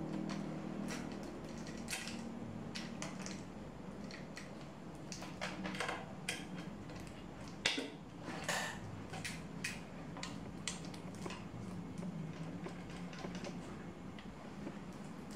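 Irregular light metallic clicks and clinks of a bicycle chain being handled and fitted onto a folding bike, over a faint steady low hum.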